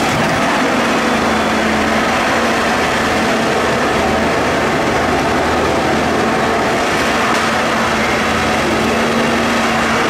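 Ecolog 590F2 wheeled harvester working, its diesel engine and hydraulics running under load as the harvester head grips a log and feeds it through its rollers. A steady engine note sets in about a second in and holds until near the end.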